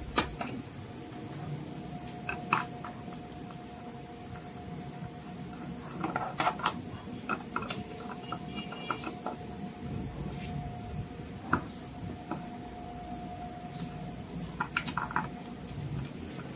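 Hands handling a small metal amplifier case: scattered light clicks and taps, with a quick cluster about six seconds in and another near the end, over a faint steady tone.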